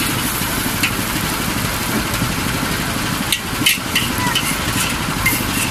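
Metal spatula and ladle clanking and scraping against a steel wok while noodles are stir-fried, several sharp clanks standing out over a steady low rumble.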